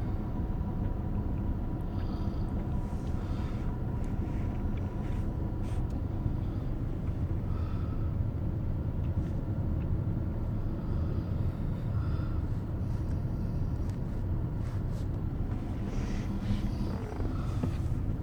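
Snoring heard as a steady low rumble, with faint higher sounds now and then.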